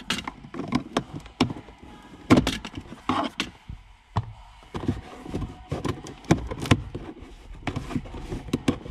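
A plastic cabin air filter being pried and worked out of its housing behind the glove box with a small screwdriver: irregular plastic clicks, knocks and scrapes, with a few louder snaps.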